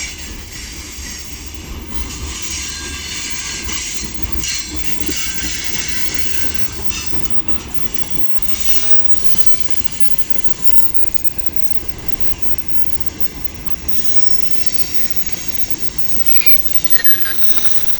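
Freight train of mixed wagons passing close, its wheels squealing in high, shifting tones over the steady rumble and clack of the wagons on the rails. The rumble overloads the microphone.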